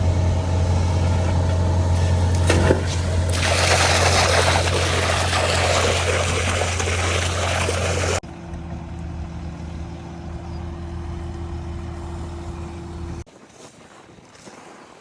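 Heavy diesel truck engine running steadily, with a loud rushing noise over it from about 3 to 8 seconds in. The sound drops abruptly about 8 seconds in to a quieter engine hum, then cuts again near the end to faint outdoor noise.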